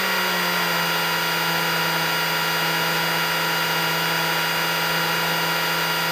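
Cessna 150's Continental O-200 four-cylinder engine idling steadily with the propeller turning, throttled back after taxiing to a stop; one even drone at a constant pitch.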